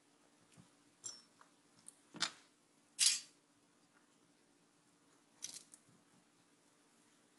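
Small parts of a dismantled CD-ROM drive (plastic gears, screws, a spindle motor) being picked up and set down on a work mat: a handful of scattered light clicks, with a louder brief scraping rustle about three seconds in, over a faint steady hum.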